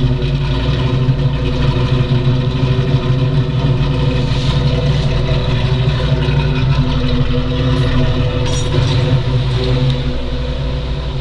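Ford 302 stroker small-block V8 in a Mustang running steadily on its first start-up after the build.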